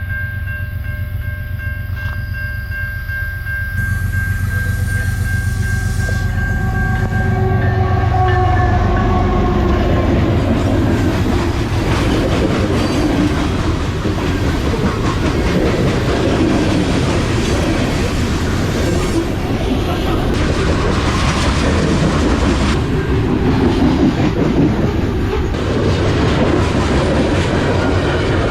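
A train passing close by. A steady pitched drone over a low rumble dips in pitch about eight seconds in as the front of the train goes past, then gives way to the continuous clatter and rumble of the cars' wheels on the rails.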